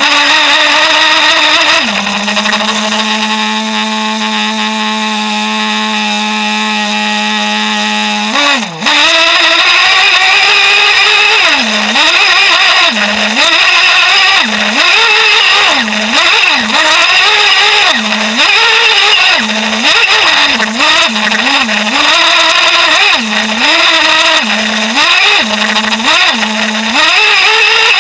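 A Traxxas Jato RC truck's two-stroke nitro engine, heard close from a camera mounted on the truck. The note climbs and holds at a steady pitch for about six seconds. From about nine seconds in it revs up and drops back in quick throttle bursts, roughly once a second.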